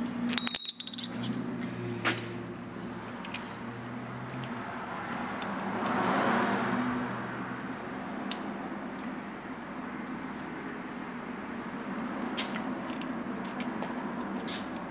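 Metal clinking with a bright ring in the first second, then scattered light clicks and a soft rushing swell about six seconds in, as the piston rod of a Rolls-Royce Silver Cloud III power-steering ram is worked up and down by hand. A steady low hum runs underneath.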